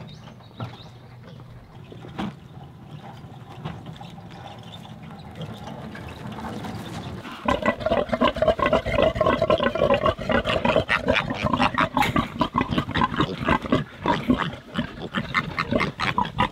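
Large black pigs (sows) and piglets grunting loudly in a rapid, continuous stream, starting suddenly about seven seconds in. Before that there is a quieter low rumble with a few knocks.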